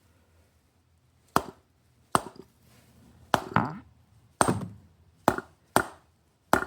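A MAC AH650 pneumatic air hammer, soaked in penetrating oil, gives seven sharp clicks or knocks in an uneven rhythm. Each knock is followed by a short wet burping gurgle from inside the tool, like a croaking frog, as the long-stuck trigger mechanism works free.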